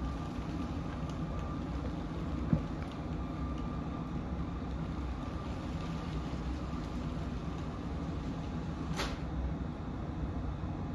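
Motorized Lego train rolling over plastic Lego track and switches: a steady low rumble with a faint motor whine that fades after about three seconds. A single sharp click about two and a half seconds in, and a short swish near the end.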